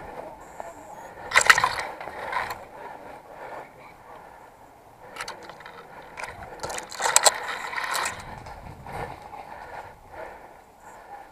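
Brush and branches rustling, scraping and snapping as a person pushes through dense undergrowth, with two louder crackling bursts about a second and a half in and around seven seconds in.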